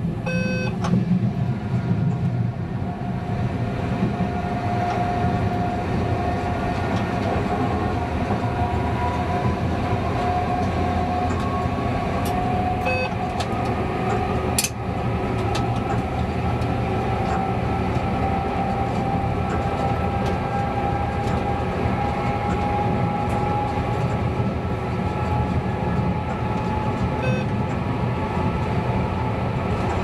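Czech Railways class 854 diesel railcar running through a tunnel, heard from its cab: steady engine and rail noise with a whine that slowly rises in pitch. Three short beeps sound, about a second in, about halfway and near the end, and there is a sharp click about halfway.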